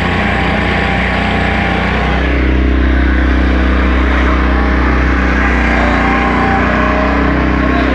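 A passenger motorboat's engine running steadily under way, a low hum that grows a little louder from about two seconds in, with water rushing along the hull.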